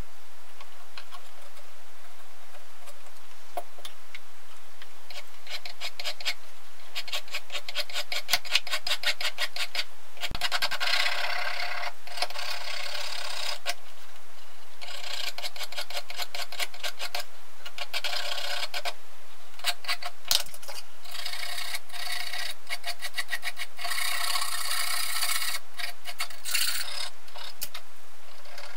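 A small needle file rasping on a brass tube, shaping its end to a point. It goes in runs of quick back-and-forth strokes with short pauses between.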